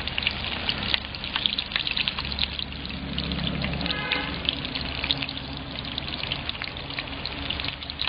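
Sea crab pieces deep-frying in hot oil: a steady sizzle with dense fine crackling.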